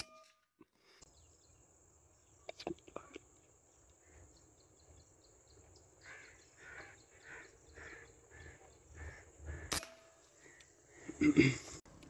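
Pre-charged pneumatic air rifle shots: a short sharp crack right at the start and another about ten seconds in. Between them birds call in a quick repeated series over a steady high hiss. Louder knocks and rustling come just before the end.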